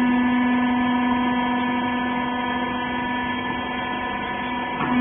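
Hydraulic power unit of a used-clothes baler running: a steady electric-motor and pump hum with a strong low tone and a ladder of overtones. The low tone dips briefly near the end, with a short rising glide.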